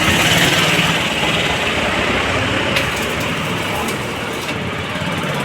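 Stick-welding arc crackling steadily, with a low hum underneath.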